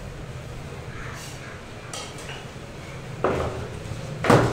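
Sharp knocks and clatter of a skinned chicken carcass being handled on a cutting table, two strong ones about a second apart near the end, the second the loudest, with a few fainter ones before, over a steady low hum.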